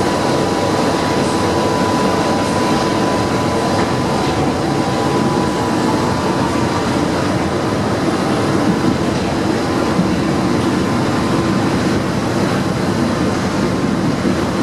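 Inside the passenger cabin of an old tram on the move: the car body rattles heavily as it runs over worn, neglected track. A thin steady whine sounds over the rattle and fades out about halfway through.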